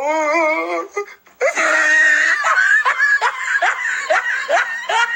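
A man laughing hysterically: a long, wavering high-pitched wail for about a second, then after a brief break a rapid string of high laughing bursts.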